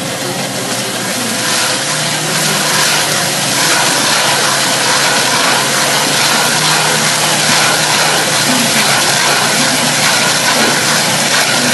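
Excavator-mounted hydraulic stump planer cutting down into a tree stump: a steady shredding of wood over the excavator's engine running, getting louder about two seconds in as the head bites deeper.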